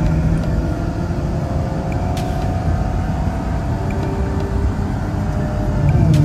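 Ferrari 812 Superfast's V12 engine running on the move, with steady road rumble beneath. The engine note creeps slowly up, then drops in pitch near the end.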